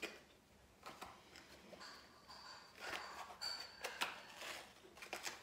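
Faint handling noise: scattered small clicks and rustles of makeup products and packaging being handled, busiest a few seconds in.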